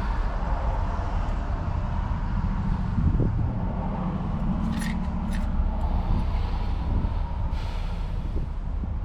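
Land Rover engine running steadily at idle, a continuous low rumble, with a couple of light clicks about five seconds in.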